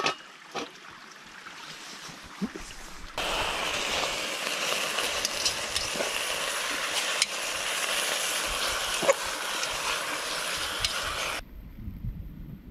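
Cubed pork sizzling as it fries down into cracklings in a pot over a campfire: a steady hiss with scattered pops and knocks that starts abruptly about three seconds in and cuts off suddenly shortly before the end. A metal pot lid clinks at the very start.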